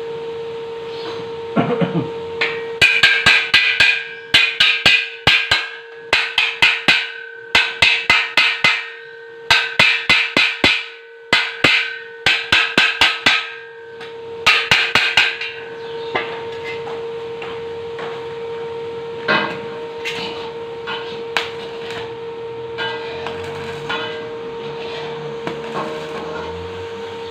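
Hammer striking steel hollow tube in quick runs of ringing metallic blows for most of the first fifteen seconds, then only a few scattered knocks, over a steady hum.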